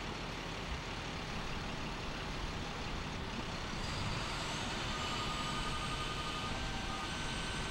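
Utility bucket truck running steadily, a constant engine-and-machinery noise, with faint steady high tones joining about halfway through.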